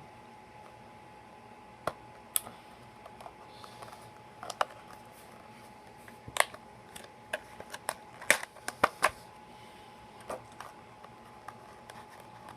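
Retail packaging of a micro USB cable being handled and opened by hand: a run of irregular sharp clicks and crackles, busiest about two-thirds of the way in, over a faint steady high hum.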